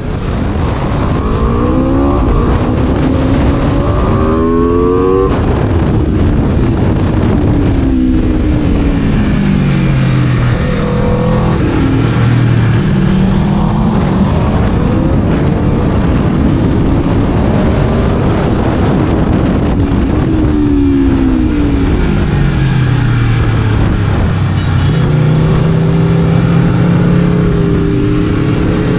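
Aprilia RSV4 superbike's V4 engine run hard: pitch climbs and drops in quick upshifts in the first few seconds, then falls as the bike slows, rises again, falls once more, and holds higher near the end.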